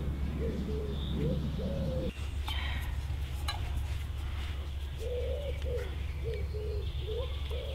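A pigeon cooing in phrases of short, low notes, once at the start and again from about five seconds in, with small birds chirping faintly and a steady low hum underneath.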